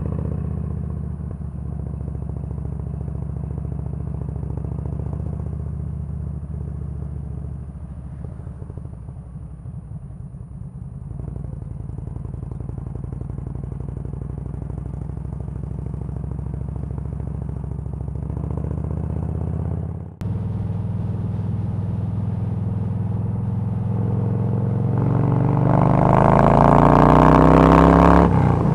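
Yamaha V-Star 1300's V-twin engine running as the motorcycle is ridden at road speed, with a brief dip about two thirds of the way in. Near the end it accelerates, its pitch rising, and wind rush on the microphone grows loud with the speed.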